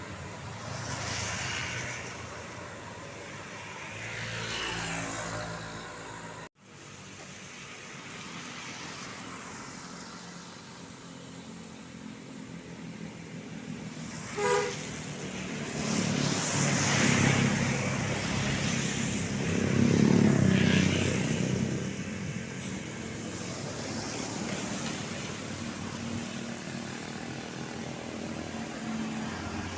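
Road traffic passing close by, several vehicles swelling and fading in turn, with one brief horn toot about halfway through. The sound cuts out for an instant a few seconds in.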